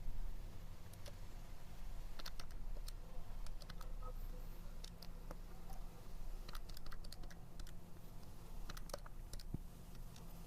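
Irregular light clicks of keys being pressed, a few at a time with short gaps, over a faint steady low hum.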